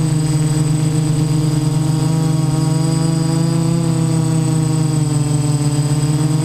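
Six brushless motors and 10-inch propellers of a DJI Naza-M Y6 multirotor in flight, heard from on board the craft. A steady, loud buzz with a thin high whine above it, its pitch wavering slightly. The uploader says the props are not yet balanced.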